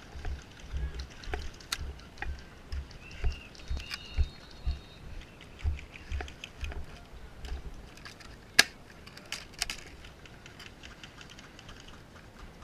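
Footfalls and jostling gear of a running player, heard as low thumps about twice a second with small clicks, which stop a little over halfway through. A single sharp crack comes about two-thirds in.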